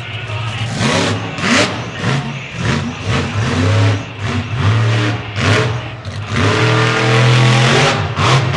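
Monster truck engine revving hard in short repeated surges, the throttle blipped on and off about every half second. Near the end it is held wide open for about two seconds as the truck takes a jump.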